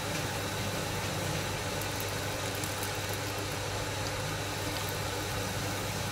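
Sparge water spraying from a perforated stainless sparge head onto a grain bed in the mash tun, a steady hiss and patter of water over a constant low hum.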